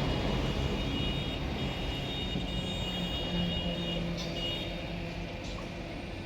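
Passenger train running with a steady low rumble and a high-pitched squeal held on several steady tones, the whole sound slowly easing off.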